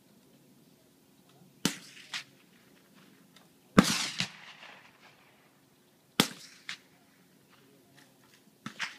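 Gunshots at a rifle range: four sharp reports about two seconds apart, the loudest a little under four seconds in with a long echo. Most are followed by a fainter crack about half a second later.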